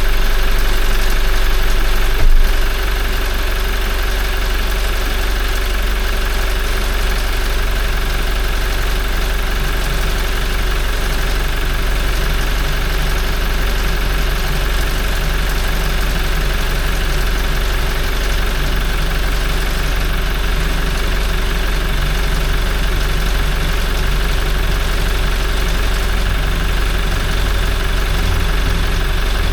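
Toyota 1GD-FTV 2.8-litre four-cylinder turbodiesel idling steadily while warming up after an oil change. A single sharp knock about two seconds in is followed by a slightly quieter idle.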